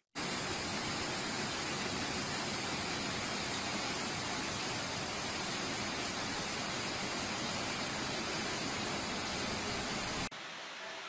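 Rushing floodwater, a steady even rush of water noise. It starts abruptly and cuts off suddenly near the end, where a quieter noise takes over.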